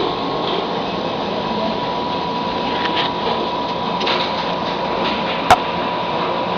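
Steady mechanical hum and hiss with a faint high tone running through it, and one sharp click about five and a half seconds in.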